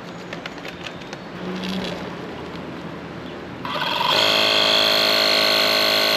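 Vintage go-kart's small Briggs & Stratton engine running just after its first start in decades. About three and a half seconds in, it suddenly gets louder and settles into a steady, even drone.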